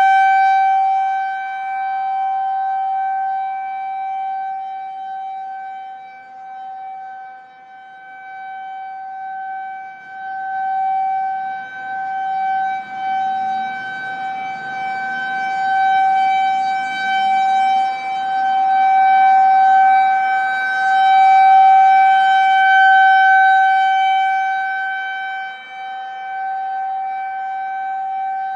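Federal Signal 2001-130 electromechanical outdoor warning siren sounding its steady full-alert tone, rather high-pitched. The loudness swells and fades every several seconds as the rotating siren head sweeps past, and the pitch wavers a little.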